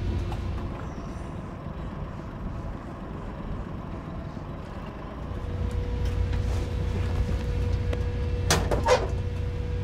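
Steady low rumble of the M/V Farley Mowat's engine under way, growing louder about halfway through, when a faint steady whine joins it. Two sharp knocks come about a second before the end.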